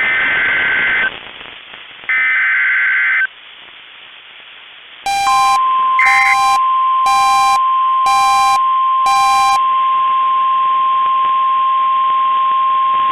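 NOAA Weather Radio Emergency Alert System signal: three raspy SAME digital header bursts, each about a second long, then after a short gap the steady 1050 Hz warning alarm tone starts about five seconds in and holds to the end. Over the first part of the tone a separate electronic beeper sounds five times, about once a second.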